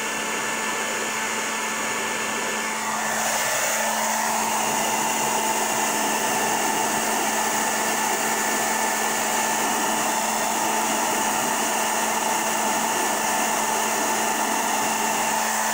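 Handheld hair dryer blowing steadily, a dense rush of air over a steady motor hum. About three seconds in, its tone shifts and it gets slightly louder.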